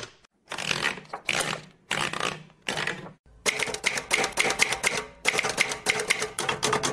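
Sound-effect clattering: five separate rasping strokes over the first three seconds, then a fast run of sharp mechanical clicks, about five or six a second, to the end.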